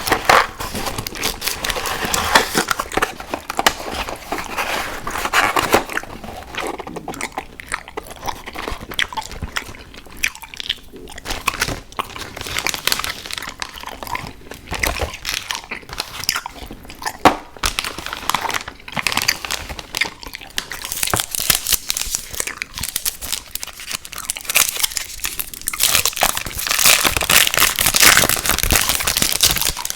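Close-miked ASMR eating of sour gummy worms cereal: steady, irregular crunching and chewing, heavier and denser near the start and again near the end.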